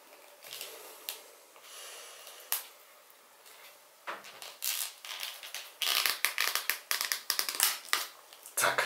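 Plastic clicking and creaking as a Philips Sonicare toothbrush handle is twisted and worked open, its bottom cap and inner unit pulling loose from the housing. There are scattered clicks at first, then fast, dense crackling clicks from about halfway in.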